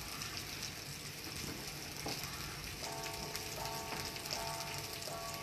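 Steady sizzling hiss of food frying in a pan, with a few faint knife taps on a wooden cutting board. About three seconds in, faint held tones at several pitches come in and break off again.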